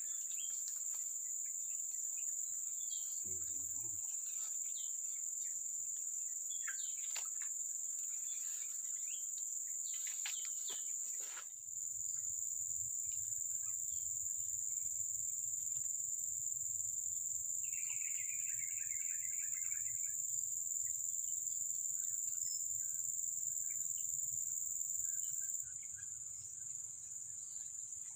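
Steady high-pitched buzzing of insects in swamp vegetation. Partway through, a short rapid trill sounds, and from about twelve seconds in a low rumble lies under the buzz.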